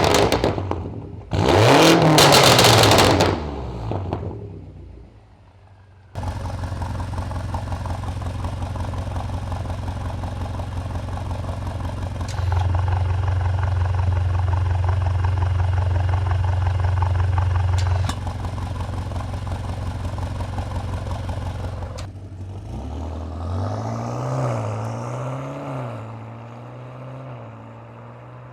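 BMW F90 M5 Competition's twin-turbo V8 through a Remus cat-back exhaust with aftermarket downpipes, revved twice sharply, then idling steadily, louder for several seconds in the middle. Near the end the car pulls away under light acceleration, engine pitch rising and dropping a few times as it shifts.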